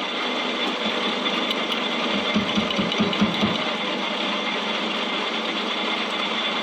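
A machine or power tool running steadily, with a few short knocks about two to three and a half seconds in.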